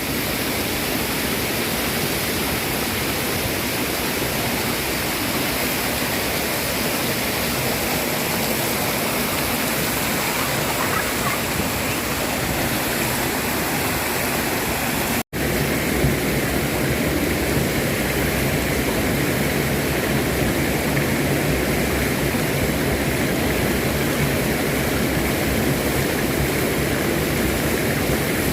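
Water from a fountain rushing and splashing down in a steady, loud roar, with a momentary break about halfway through.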